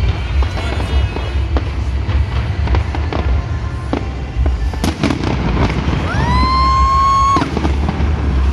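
Fireworks display: a steady run of bangs and crackles over a deep rumble, with music playing underneath. About six seconds in, a pitched tone rises, holds for about a second and stops abruptly.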